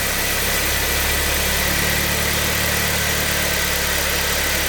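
Kia Sportage 3's freshly rebuilt G4KD 2.0-litre four-cylinder petrol engine idling steadily just after being started, with a steady thin whine above the engine note.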